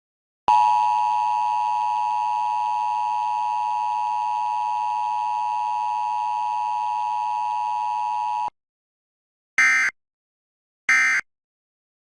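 Emergency Alert System alert audio from a monthly test: the steady two-tone attention signal holds for about eight seconds and cuts off sharply. About a second later come three short digital data bursts, a little over a second apart.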